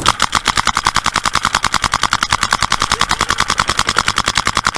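Electronic paintball marker, likely a Dye DM14, firing a long rapid string of evenly spaced shots, roughly a dozen a second.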